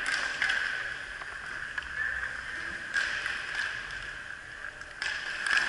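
Inline skate wheels whirring on a plastic sport-court floor, swelling and fading with the skating. A few sharp clacks of sticks and puck come through it.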